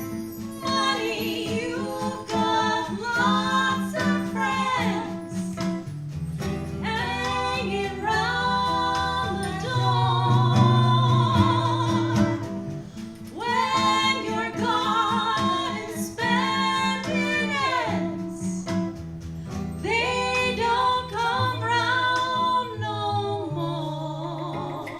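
Live small jazz band playing a song: a singer holds long notes with vibrato over guitar and percussion.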